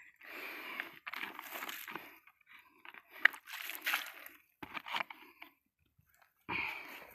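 Footsteps in boots crunching through dry leaf litter and twigs, roughly one step a second, with a short pause near the end.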